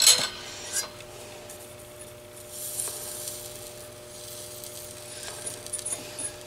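Flux sizzling and crackling as a soldering iron melts solder onto fluxed vacuum-tube pins, re-tinning them. A sharp crackle right at the start, then soft intermittent hissing with small crackles near the end.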